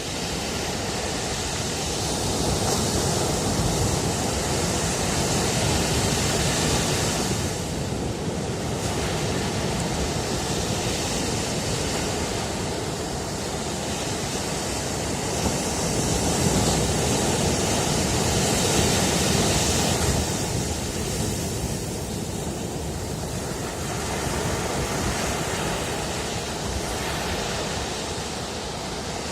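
Ocean waves breaking and washing on a shore: a continuous surf noise that swells and ebbs slowly, with the louder surges several seconds long.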